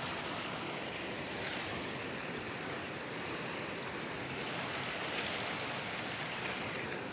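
Muddy floodwater from heavy rain rushing over rocks in a swollen stream: a steady, even rush of water.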